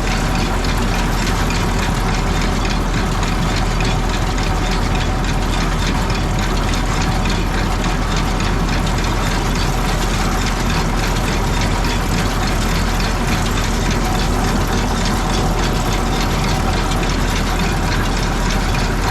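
Tractor-driven John Deere round baler running steadily, its chains and rollers turning over the tractor engine's steady running.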